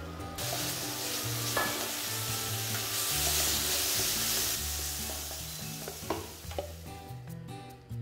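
Holy basil leaves and roast pork neck sizzling in hot oil in an iron wok while being stir-fried with a wooden spatula. The sizzle flares up about half a second in as the leaves hit the pan, is loudest midway and dies down near the end, with a few knocks of the spatula against the pan.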